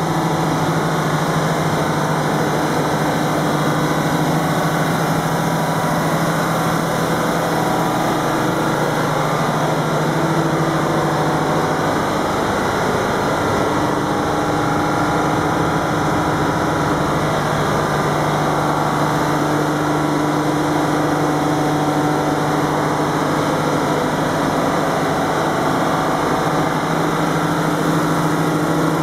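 Diesel engine of a 250 kVA Detroit generator set running at a steady speed, an even, unchanging drone.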